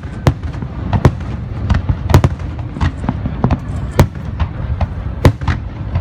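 Aerial fireworks bursting in rapid succession: a stream of sharp bangs, several a second and uneven, over a continuous low rumble of shells going off.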